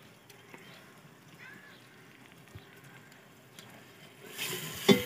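Faint hiss with a few small clicks, then about four seconds in a louder sizzle as chopped onions go into hot oil and masala in an aluminium cooking pot.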